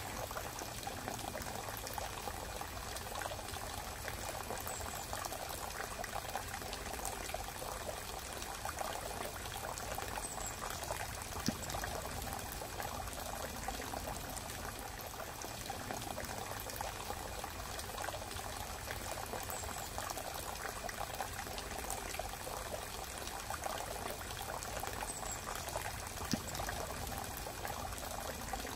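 A steady pouring, water-like noise with fine crackling throughout and a couple of single clicks.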